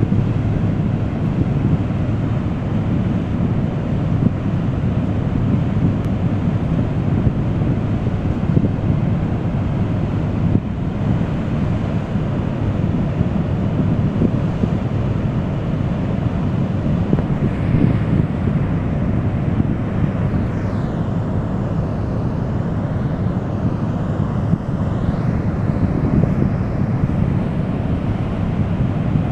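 Water discharging through a dam's open gates and crashing into the pool below: a loud, steady rush of churning whitewater, deepest in the low range.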